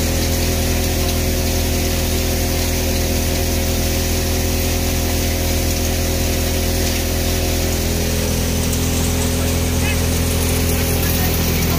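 Multicrop thresher with three fans running steadily while threshing: a loud, constant mechanical drone with several steady low tones.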